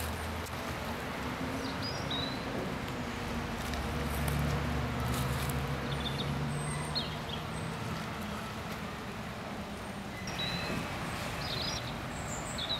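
Outdoor ambience: a steady low rumble of traffic that swells for a few seconds midway, with short high bird chirps every few seconds.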